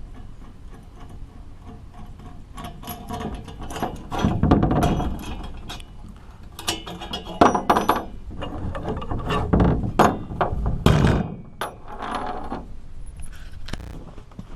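Irregular knocking and clinking of metal parts and hand tools being handled, with a few louder knocks and a short ringing after some of them.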